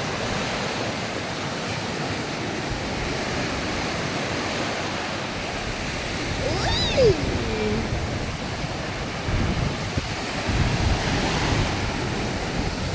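Sea waves washing steadily onto the beach, with wind buffeting the microphone in low gusts in the second half. A short falling cry rises above it about seven seconds in.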